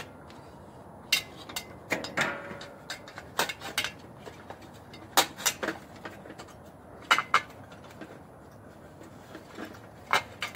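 Irregular knocks and light metallic clinks, about ten of them, as things are moved and handled.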